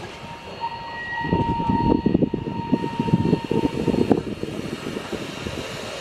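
Steam train running on the rails: a rough rumble full of clattering wheel and car noise. A thin, steady high tone sounds from about half a second in to near the three-second mark.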